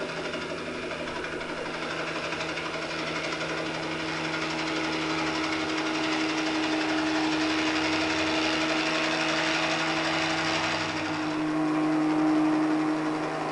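Helicopter engine and rotor running steadily, heard from inside the cabin as a continuous drone with a steady hum. About eleven seconds in, its tone shifts and it grows briefly louder.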